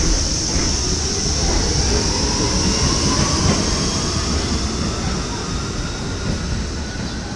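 R68-series New York City subway train (G line) pulling out of the station and moving away: a steady rumble of wheels on rail with a high-pitched squeal over it, both fading as the train recedes.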